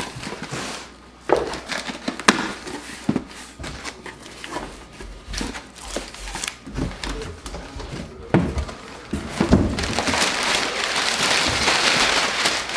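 A cardboard box being cut open with scissors and unpacked: scattered knocks and clicks of cardboard and scissors, then a few seconds of steady rustling of packaging from about ten seconds in.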